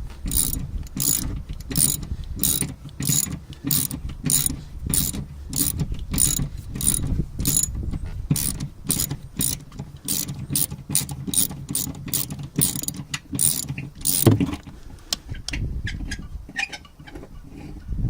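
Socket ratchet clicking steadily, about two to three clicks a second, as it undoes the seized 12 mm nut on a spare-wheel retainer spindle that has just begun to release. About 14 seconds in there is a single louder knock, and after it the clicks come more sparsely.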